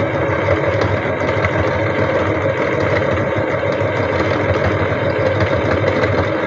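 Electric sewing machine running steadily, stitching appliqué around the curved edge of a fabric circle.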